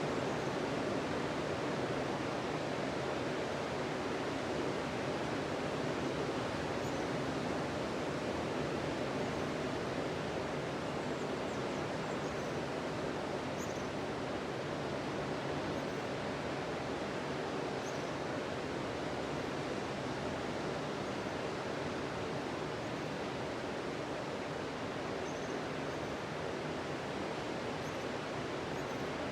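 Ocean surf breaking on a sandy beach: a steady, continuous wash of waves.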